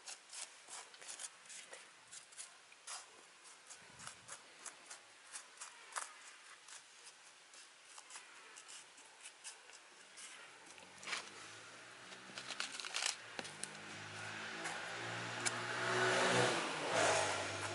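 Light ticks and rustles of kale seeds rubbed from the fingers and dropping onto a plastic seedling tray. From about ten seconds in, a passing motor vehicle's engine hum rises to become the loudest sound near the end.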